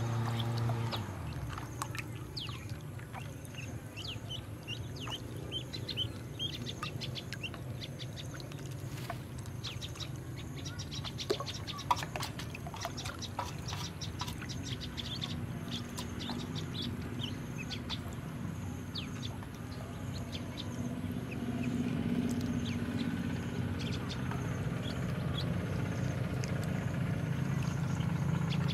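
A group of ducklings peeping, with many short, high chirps that fall in pitch, over a low steady hum that grows louder in the last several seconds.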